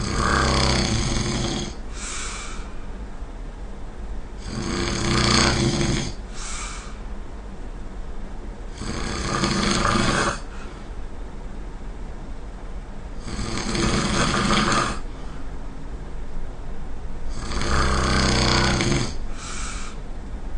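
A person snoring, one long snore about every four and a half seconds, five in all. Three of the snores are followed by a short, fainter sound.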